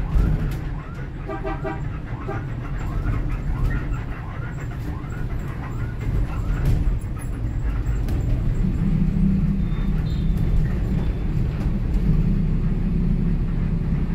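City bus running, heard from inside the cabin: a steady low engine and road rumble that grows stronger about nine seconds in. A horn honks briefly about a second in.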